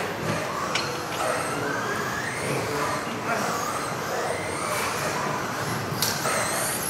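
Electric RC off-road buggies racing, their motors whining up and down in pitch as they accelerate and slow through the corners, with a sharp knock about six seconds in.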